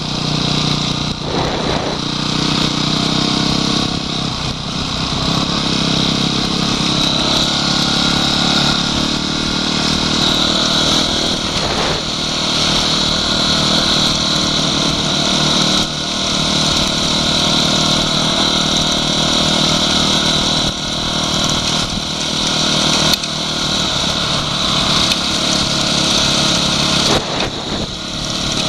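Off-road motorcycle engines running at riding speed, among them a Honda CRF250X's single-cylinder four-stroke, with a steady rush of wind over the microphone. The engine pitch shifts a few times early on as the throttle changes.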